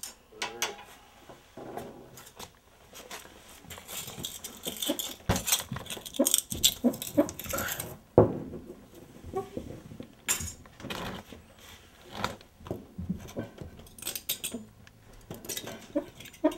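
Hard objects clinking, scraping and knocking on a concrete floor as a rock and a small metal tool are handled. A dense clatter runs from about four to eight seconds in, then comes one sharp, loud knock just after eight seconds, with scattered knocks after it.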